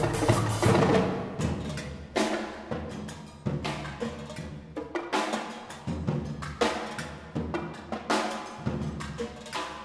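A percussion quartet plays a busy rhythmic passage on drums, with bass drum and snare struck with sticks. Heavy accented hits come about every second over the faster strokes.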